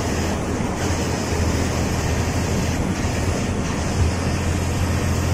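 Steady engine drone and road noise inside the cab of a moving state transport bus cruising on an open road: a constant low hum under a dense hiss of tyre, wind and body noise.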